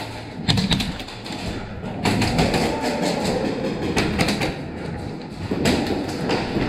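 Rumbling movement noise from a player moving quickly through an indoor airsoft arena, footsteps and gear rubbing near the microphone, with a few sharp knocks near the start and near the end.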